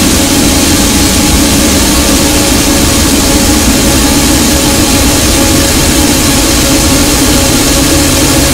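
Noise music: a loud, unchanging wall of dense distorted noise, with a steady drone in the low mids and hiss across the top.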